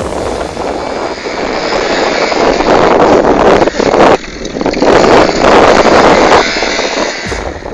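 Suzuki Sepia ZZ 50 cc two-stroke scooter engine revving hard while the rear wheel spins in gravel and dirt. Loud, with a short drop about four seconds in, easing off near the end.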